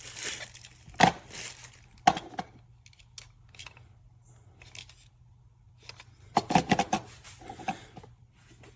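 Handling noise from plastic packaging and small hard parts: rustling with sharp clicks and knocks, a strong one about a second in, another at two seconds, and a quick cluster of them around six to seven seconds.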